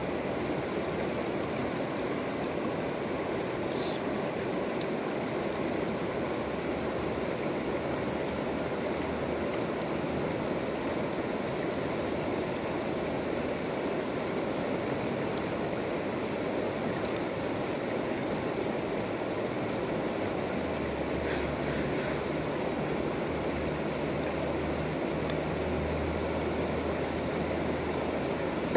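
Shallow mountain river rushing steadily over a gravel and stone bed.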